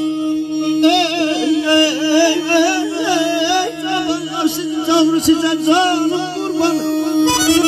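Male mugham singer's wordless vocalise, a wavering line of quick trills and ornaments, over a steady held drone note. The singing stops near the end.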